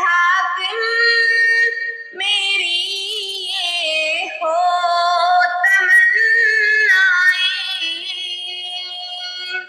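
A high voice singing a naat in Punjabi, with long held notes whose pitch wavers and bends in ornamented runs.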